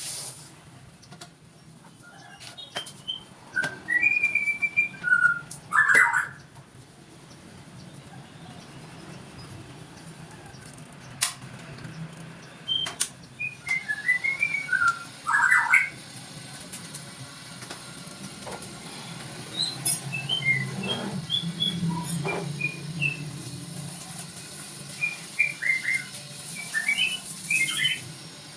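Caged songbird chirping and whistling in short bursts of quick notes, several seconds apart, over a low steady hum.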